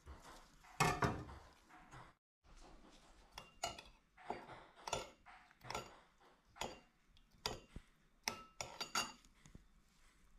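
A metal spoon stirring liquid in a small ceramic bowl, clinking sharply against the bowl in an irregular string of taps. Earlier, about a second in, a louder knock and scrape as chopped chillies are pushed off a knife blade into the bowl.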